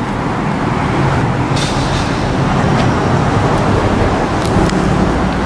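Steady road traffic: passing vehicles' engines and tyre noise.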